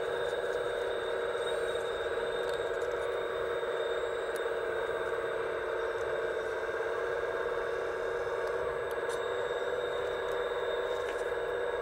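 Hydraulic pump of an RC Liebherr A918 model excavator whining steadily while the grapple saw arm lifts and swings a log.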